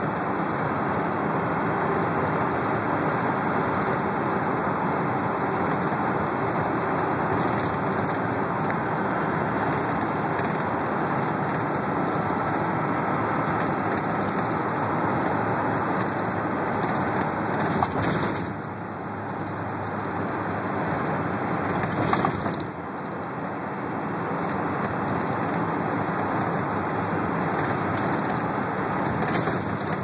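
Steady road and engine noise inside a bus cabin moving at highway speed. Two sharp knocks come about four seconds apart past the middle, each followed by a short drop in the noise.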